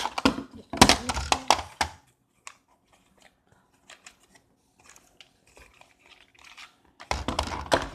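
Packaging being handled, crinkling and tearing in loud noisy bursts for the first two seconds and again near the end, with faint small clicks and rustles in between.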